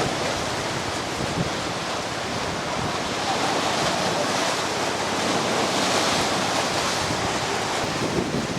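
A steady rushing noise with no speech, growing slightly louder a few seconds in.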